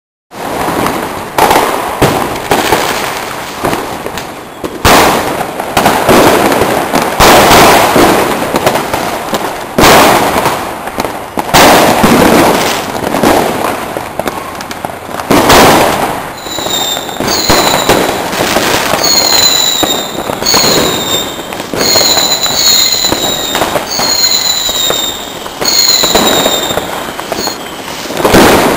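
Fireworks going off: a dense run of sharp bangs and crackling firecrackers. From about halfway through, a series of high whistles rises and falls, each about a second long, from whistling fireworks.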